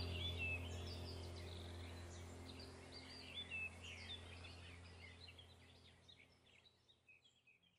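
Birds chirping and twittering, many short high chirps over a steady low hum, the whole sound fading away toward the end.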